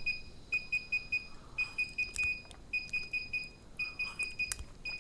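DJI Phantom 3 remote controller beeping in quick bursts of four or five high beeps, repeating about once a second: the sound that its firmware update is still in progress.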